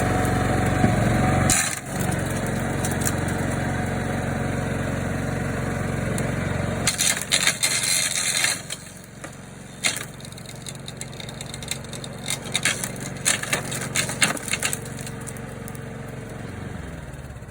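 Masport Genius 4-in-1 rotary mower's petrol engine running while it mulches twigs, the blade chewing through wood in a run of sharp cracks and crunches from about seven to fifteen seconds in. The engine falls away near the end.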